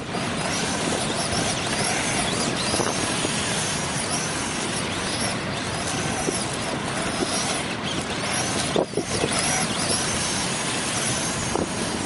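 Kyosho Blizzard EV RC tracked vehicle's stock sealed electric motor and gears whining, the pitch rising and falling with the throttle, over a steady rushing noise.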